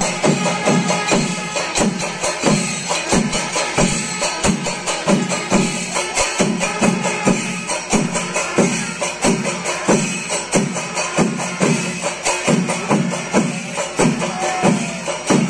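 Kerala temple percussion ensemble playing, most likely chenda drums and cymbals: a steady beat of drum strokes, about two to three a second, under continuous ringing cymbals.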